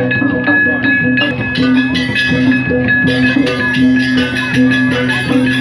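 Balinese gamelan music: bronze metallophones and gongs ringing in a fast, even rhythm, with steady sustained tones.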